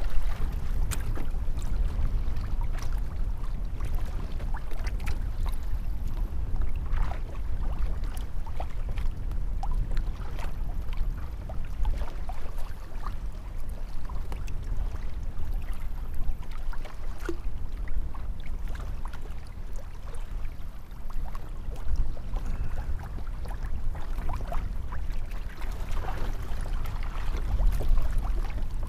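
Choppy water lapping and splashing against a kayak hull, over a steady low rumble of wind on the microphone, with scattered small clicks and knocks.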